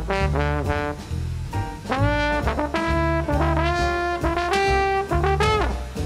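Jazz trombone solo, a single melodic line with slides up and down between notes, over a stepping bass line from the big band's rhythm section.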